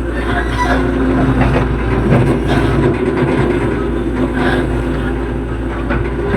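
Hitachi EX110 excavator's diesel engine running steadily under working load, with a few short knocks scattered through.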